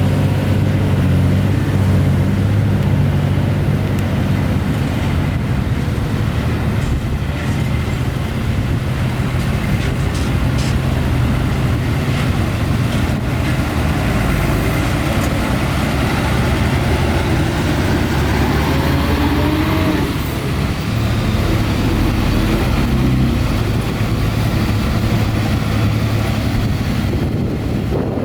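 Heavy diesel engines of earthmoving machinery running steadily with a deep, low hum, the pitch wavering slightly around the middle as the engines work.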